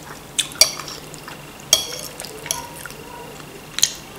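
Metal fork clinking and scraping against a plate as food is picked up: five or so sharp clinks, one ringing briefly.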